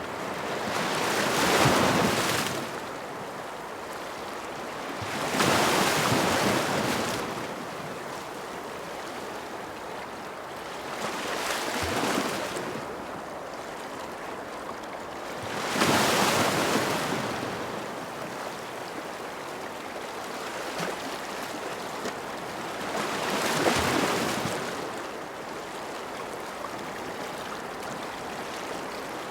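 Ocean waves breaking and washing in, about five swells that build and fade over a steady hiss of surf.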